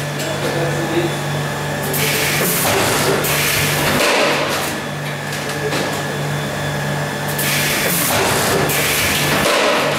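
Illig RV 53 thermoforming machine running through its cycle: a steady low hum broken by rushes of hiss every three to four seconds.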